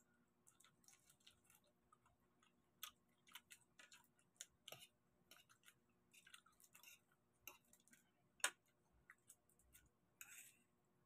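Faint eating sounds: short clicks and smacks from cooked prawns being peeled by hand and chewed, scattered irregularly, with one sharper click about two-thirds of the way through.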